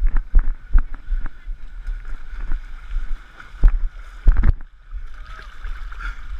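Sloshing and splashing of muddy water as a runner wades through a mud-run water pit, with a series of knocks and thumps on a wooden climbing frame and log; the loudest thumps come a little before the middle and again just past it.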